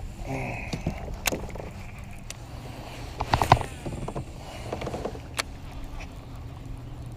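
Scattered clicks and knocks of gear being handled on a fishing kayak, the loudest cluster about three and a half seconds in, over a steady low rumble of wind and water.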